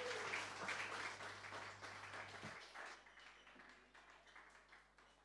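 Audience applause that fades away about three seconds in.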